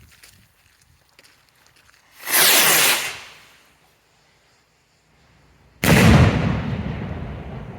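Gandalf firework rocket launching with a hissing whoosh that lasts about a second, then a few seconds later a loud, sudden bang high up that echoes and fades away slowly.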